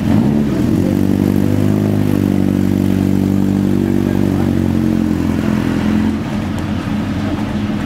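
Single-seater formula race car's engine running at low revs with a fairly steady pitch as the car pulls slowly away, growing fainter about six seconds in.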